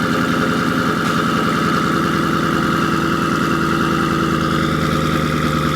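Twin-turbo Shelby GT500's 5.2-litre V8 idling steadily through a freshly fitted Corsa Extreme active catback exhaust with double H pipe.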